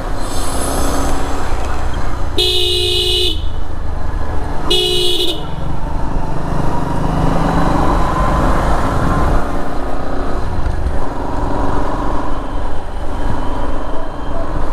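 Vehicle horn sounding twice, a honk of just under a second followed about two seconds later by a shorter one, over steady street traffic and engine rumble.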